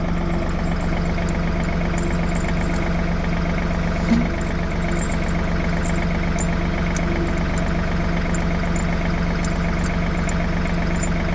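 John Deere tractor engine idling steadily, with faint metallic clinks as tire chains are fitted and one short knock about four seconds in.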